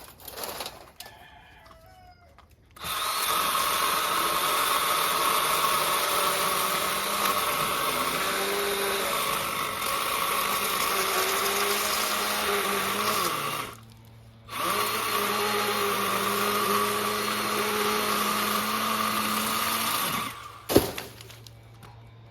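Milwaukee M12 battery pruning chainsaw with a 6-inch bar cutting through a cherry log, working at the limit of its cutting capacity. It runs steadily for about ten seconds, with its pitch dipping slightly under load. It stops for half a second, runs again for about six seconds, then cuts off, followed by a sharp click.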